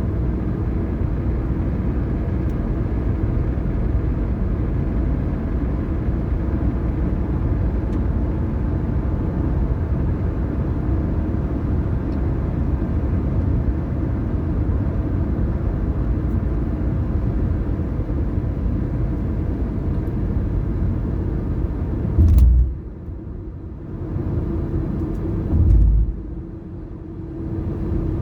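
A car driving: a steady low road and engine rumble. Near the end, two low thumps are each followed by a sudden drop to a quieter rumble.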